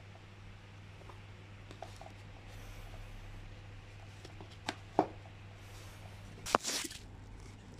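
Small plastic cover caps being handled and pressed into a bicycle child seat's hard plastic handle: two sharp clicks a little past halfway, then a louder click with a short rustle near the end.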